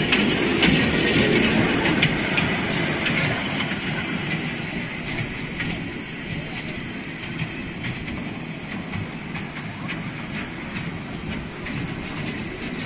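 Children's ride-on train running along a narrow miniature rail track, its wheels clicking over the rail joints. Loudest at first as it passes close, then quieter as it circles away.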